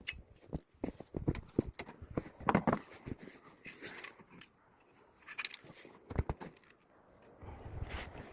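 Irregular light knocks and clicks of aluminum angle stock and hand tools being handled and set down while measuring and marking for cutting; one sharper knock about halfway through.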